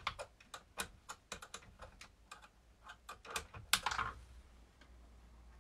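Quick, irregular light clicks and taps of a small metal open-end wrench against the metal parts of a radio-controlled car's chassis as the ride-height adjuster is set. The clicks are dense for about four seconds, then thin out.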